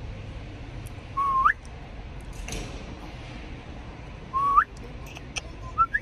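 A person whistling loudly: two held notes that sweep sharply upward, about three seconds apart, then a shorter rising whistle near the end.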